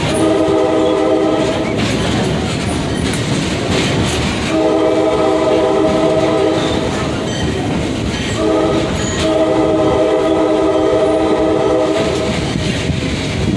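Excursion train's horn sounding three long blasts, the last held longest, over the clickety-clack and rumble of the moving train.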